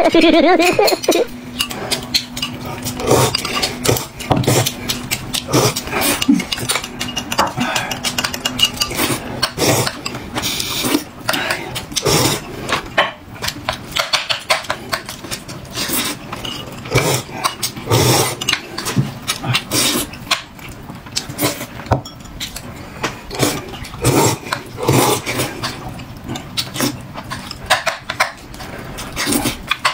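Eating utensils clinking and knocking against bowls and dishes during a meal: many short, irregular clicks.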